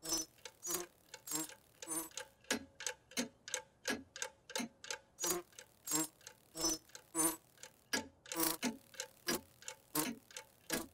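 Mantel clock ticking steadily, about three ticks a second.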